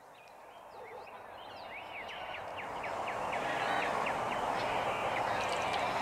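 Nature ambience fading in: a steady rushing noise with birds chirping over it, growing louder.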